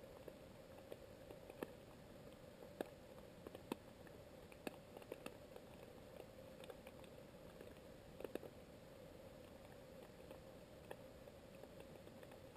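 Faint underwater ambience: scattered, irregular sharp clicks and crackles over a steady hum.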